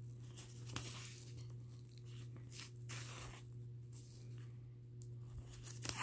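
Faint rustling of thin nylon fabric and the swish of thread being pulled through it as a hole is hand-stitched with a needle, over a steady low hum.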